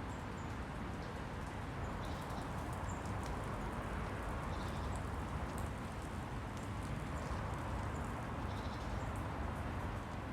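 Steady outdoor background noise with a low rumble, and faint, scattered bird chirps.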